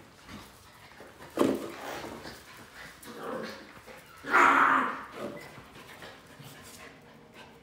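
Shiba Inu puppies and a small white dog play-fighting, with a few short barks and yaps. The loudest and longest comes a little past halfway.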